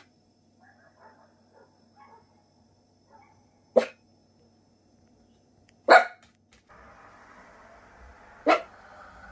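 Dog barking: a few faint barks in the first three seconds, then three loud single barks about two seconds apart. From about two-thirds of the way through, a low continuous growl sets in underneath: the Miniature Pinscher's nervous reaction to a big dog barking outside.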